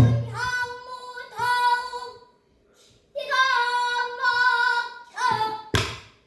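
A child pansori singer singing two held, wavering phrases in the throaty traditional style. A loud buk drum stroke sounds at the start and a sharp stroke comes near the end.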